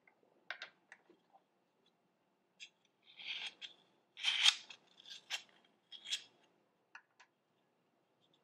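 Small metal bakeware handled on a wooden counter: a string of short scrapes and clicks from a miniature square cake pan and a ring cutter, the loudest scrape about four and a half seconds in.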